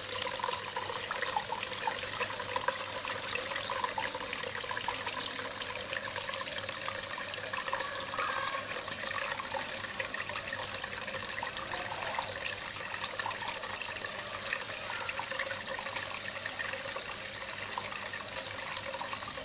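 Water from a small cement garden waterfall splashing and trickling steadily into a fish pond.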